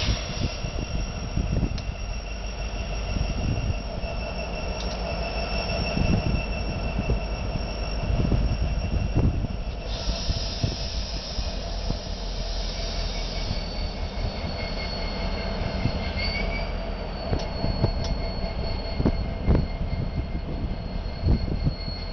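Ferromex diesel locomotives rolling slowly by, engines rumbling, with steady high-pitched wheel squeal that changes pitch a couple of times, and scattered clanks and knocks from the wheels on the track.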